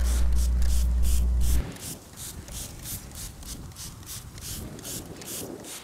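Trigger spray bottle of griddle cleaner squirted rapidly onto a greasy camping griddle, short hissing sprays about four a second, to lift the burnt-on grease and meat scraps. A louder low drone from background music cuts off about a second and a half in.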